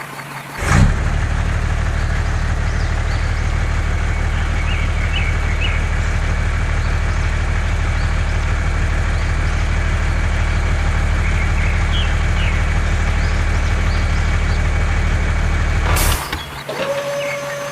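A motor running at a steady speed with a loud, even hum. It starts with a sharp click about a second in and cuts off suddenly near the end.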